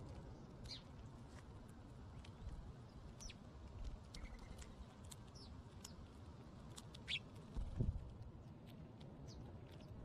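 Faint, scattered clicks of mourning doves pecking birdseed from a terracotta dish, with a few short high bird chirps. A low thump comes just before eight seconds in.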